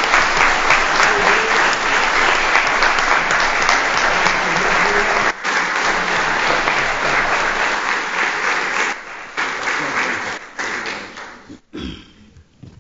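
Audience applauding steadily, the clapping thinning out after about nine seconds and stopping near the end.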